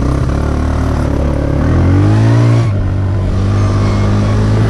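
Four-wheeler (ATV) engine pulling away from idle, its pitch rising steadily for about two and a half seconds as it accelerates, then dropping suddenly and settling into steady running.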